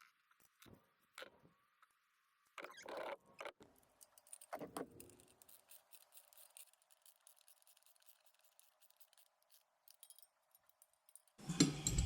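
Faint, scattered metallic clicks and taps of bolts and lock nuts being put onto steel roof-rack mounting brackets by hand, with a few louder clusters about three and five seconds in.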